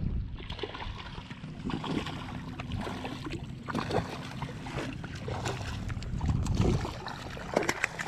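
Water splashing as a hooked speckled trout thrashes at the surface while it is fought to the net, over choppy shallow bay water, with wind rumbling on the microphone. Many short splashes and knocks are scattered throughout.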